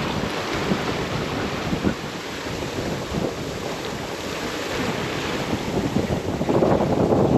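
Wind buffeting the microphone over the wash of waves around a sailboat under sail with no engine running, the wind gusting louder near the end.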